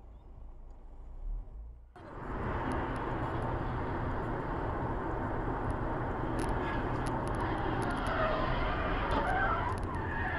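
Steady road and wind noise inside a moving car, starting abruptly about two seconds in after a faint low rumble. Near the end a faint wavering squeal rises above it.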